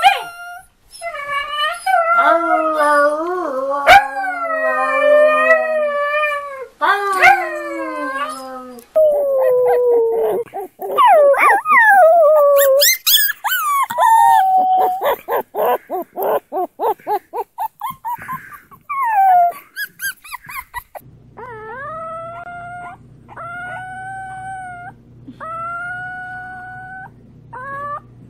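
Puppies howling in turn: long, wavering puppy howls from husky-type puppies, then a quick run of yips and howls. In the last few seconds a bulldog puppy gives short, rising howls about every second and a half over a low steady hum.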